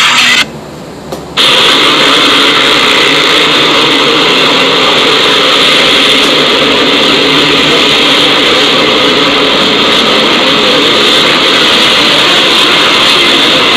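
A steady, loud rushing noise with no clear pitch. It drops away for about a second near the start, then resumes unchanged.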